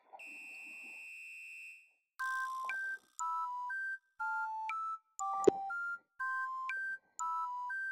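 Background music: a simple electronic chime tune of short two-note beeps, about one a second. It opens with a steady high beep, and there is a single sharp click about five and a half seconds in.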